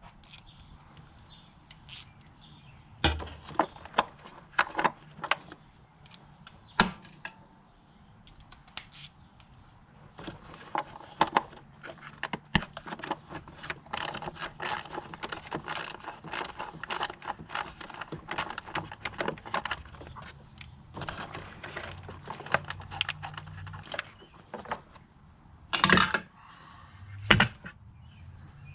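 Metal hand tools clinking and clicking against metal engine parts, with scattered knocks, a long run of rapid small clicks through the middle, and two louder knocks near the end.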